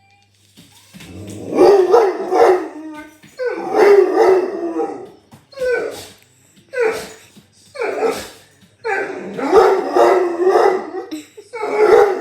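Dog howling and barking: a string of about seven drawn-out, pitched howl-barks, each half a second to two seconds long, with short pauses between them.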